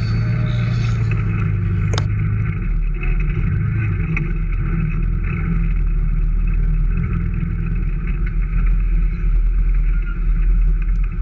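Off-road vehicle engine running steadily as it drives, with a brief sharp click about two seconds in.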